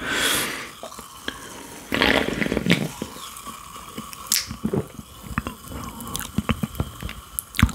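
Close-miked sips of carbonated cherry cola from an aluminium can: a slurp right at the start and another about two seconds in, followed by swallows and scattered wet mouth clicks.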